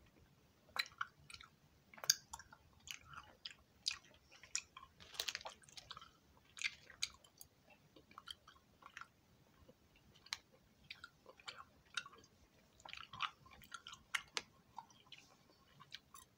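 A person chewing a soft, chewy HI-CHEW cola-flavoured candy: faint, irregular mouth smacks and clicks, a few each second.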